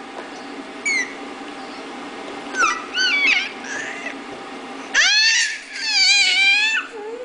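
Baby squealing in very high-pitched shrieks: a brief squeak, a few short chirping squeals, then two long, loud shrieks near the end, the second one wavering in pitch.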